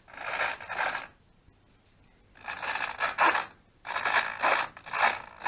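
Two 9g micro servos buzzing as they drive the F-16 model's elevons (mixed elevator and ailerons) back and forth, in short rasping bursts of under a second, several in a row with a pause between the first and the rest.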